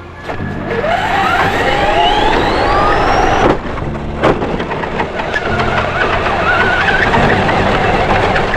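RC car's electric motor whining, rising steeply in pitch as it speeds up for about three seconds. Two sharp knocks follow about a second apart, then a steadier wavering whine as it keeps driving.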